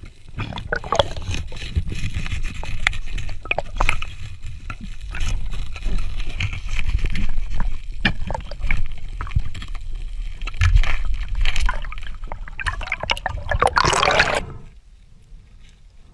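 Underwater sound picked up by a camera: a steady low rumble of moving water with scattered clicks and crackles. Near the end comes a louder rushing burst, which cuts off suddenly and leaves a quieter water hiss.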